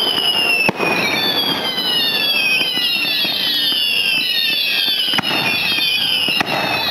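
Fireworks display: a rapid string of whistling fireworks, their whistles overlapping one after another and gliding down in pitch, with a few sharp bangs about a second in and again near the end.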